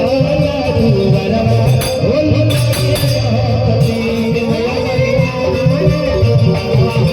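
A pop song playing: a singing voice over a steady beat with tambourine-like percussion and a bass line.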